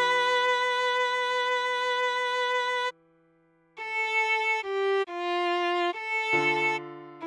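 Viola playing a slow melody. One long held note is followed by a brief pause, then four shorter notes, A, G, F and back up to A, with a lower note held beneath.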